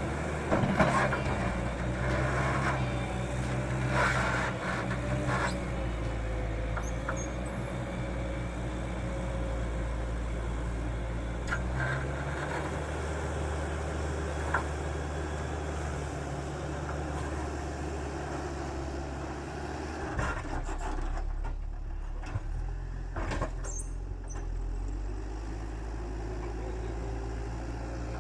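Engine of heavy earthmoving machinery running steadily, its hum shifting a few times, with occasional short knocks and clanks.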